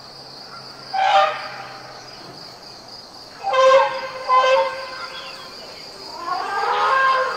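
Asian elephants trumpeting: short calls about one second in and twice around the middle, then a longer call rising in pitch near the end, over a steady buzz of insects.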